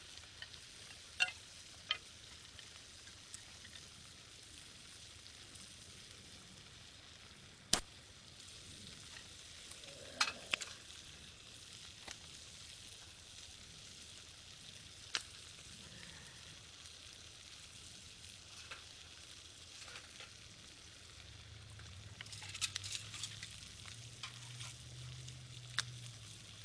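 Chicken skin frying in its own fat in a frying pan over a small wood fire: a steady sizzle, with now and then a sharp pop, and a brief run of crackling near the end.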